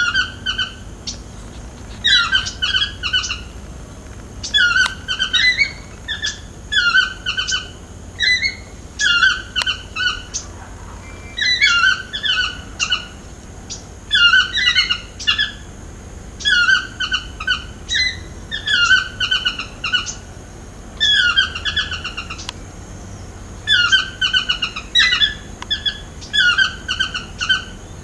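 Yellow-throated (chestnut-mandibled) toucan calling over and over, a yelping call repeated a little more than once a second. Each call is a short rising note followed by a few quick falling notes.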